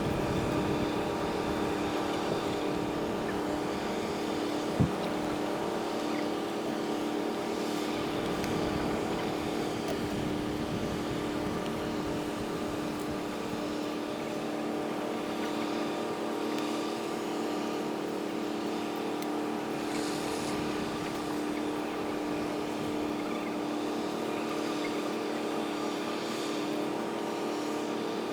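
A steady mechanical drone, like an engine running, made of several steady hum tones. A single sharp click comes about five seconds in.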